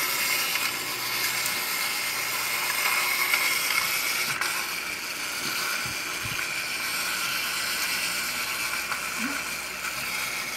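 Battery-operated toy fishing game running: its small motor and plastic gears whir steadily as the two fish ponds turn.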